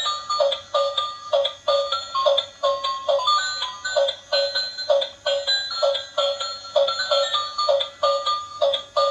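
Music: a bright, plinky tune of short repeated notes at a quick, steady pace.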